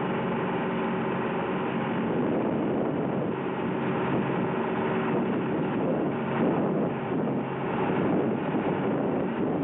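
Seine boat's engine running steadily, a constant hum with rough noise over it.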